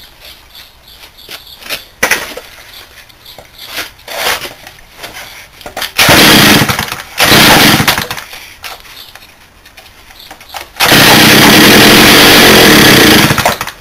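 Stihl 08 two-stroke chainsaw being pull-started. It fires twice briefly around the middle, then runs for about three seconds near the end before cutting out. It is running only on fuel dribbled into the carburettor, the sign of a fuel delivery problem.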